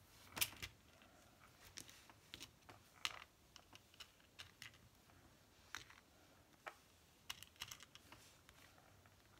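Faint, scattered light clicks and taps of fingers and nails handling small metal rim pearl embellishments in a round plastic container, at irregular intervals, the sharpest about half a second in and another about three seconds in.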